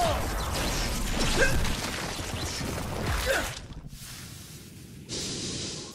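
Cartoon action sound effects of water cannons blasting with crackling energy: a rushing noise with two sharp whooshes, about a second and a half and three seconds in. After a short lull comes a steady high hiss.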